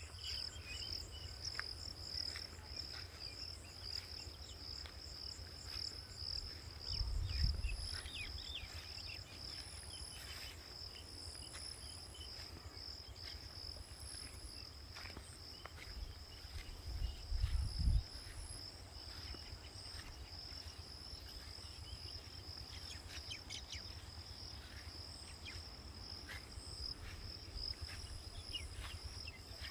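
Insects trilling steadily in a high, unbroken chorus, with shorter higher chirps coming and going over it. A low rumble breaks in twice, about seven seconds in and again around seventeen seconds.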